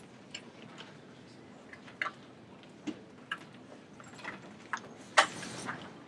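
Scattered, irregular clicks and taps in a quiet room, such as laptop keys and small handling noises, with a louder brief rustle about five seconds in.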